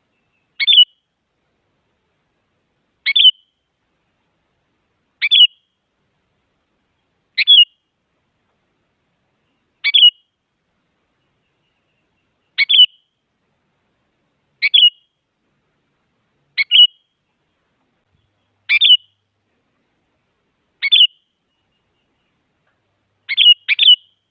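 Sooty-headed bulbul (kutilang) giving short, sharp calls, one about every two seconds, with a quick double call near the end.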